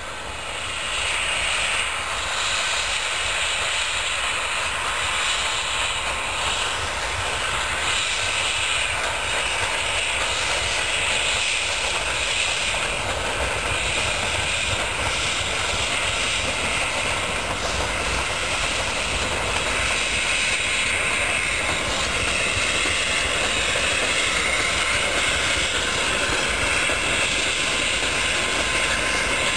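Narrow-gauge Rio Grande K-36 steam locomotive No. 484 passing with its passenger train: a steady hiss of steam and exhaust over the rumble of the train.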